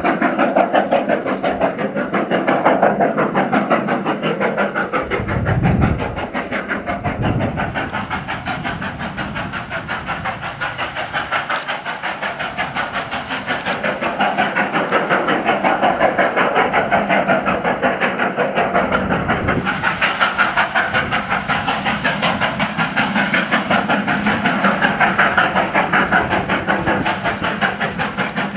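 GWR Castle class 4-6-0 steam locomotive Nunney Castle slogging up a steep gradient. Its exhaust beats come in a rapid, steady rhythm.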